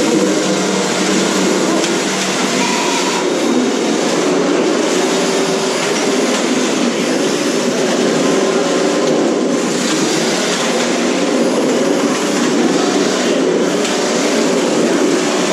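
Several 1/10-scale radio-controlled cars running together in a steady, dense mechanical din of motors, gears and tyres.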